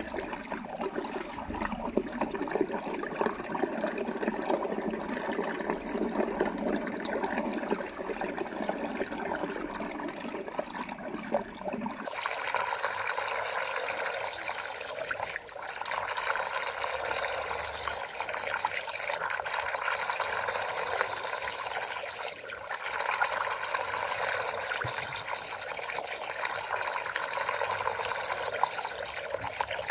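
Water swirling down a large whirlpool vortex into a drain hole: a steady rushing, draining sound that turns brighter and hissier about twelve seconds in.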